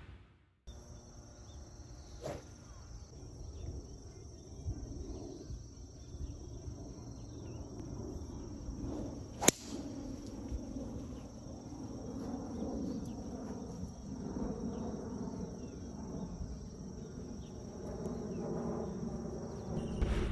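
A TaylorMade M5 driver striking a golf ball off the tee: one sharp, loud crack about halfway through. Around it runs faint outdoor ambience with a low rumble and a steady high tone.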